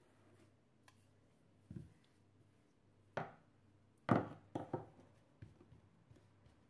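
Rolling pin knocking against a tabletop and hands pressing a sheet of cookie dough: a handful of dull knocks, the loudest about four seconds in, followed closely by two smaller ones.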